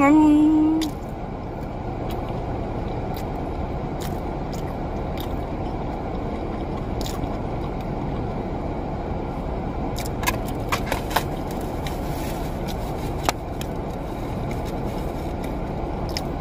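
Steady rushing of a car's air conditioning running inside the cabin, with a few light clicks about ten and thirteen seconds in.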